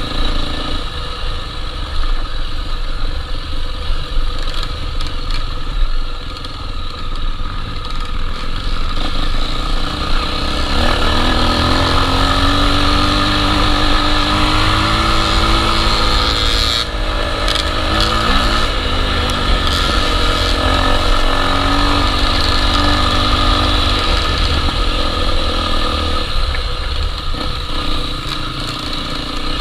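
Honda XR 250 Tornado trail motorcycle's single-cylinder engine running under way, its pitch rising and falling with the throttle through the middle stretch.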